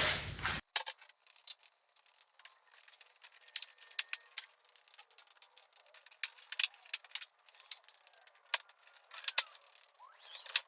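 Scattered light clicks and small rattles of plastic trim pieces being unclipped, pulled straight out and handled, sounding thin.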